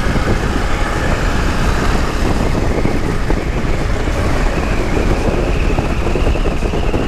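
Motorcycle being ridden at road speed: a steady mix of engine and wind noise on the microphone, with a faint whine that rises a little in pitch over the middle of the stretch.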